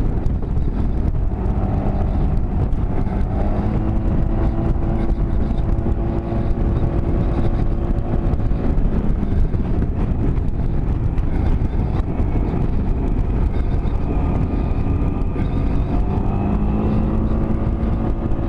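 A small 200 cc (12 cubic inch) motorcycle engine pulling steadily up a mountain road, with heavy wind rumble on the microphone. The engine's pitch shifts a couple of times, once a few seconds in and again near the end.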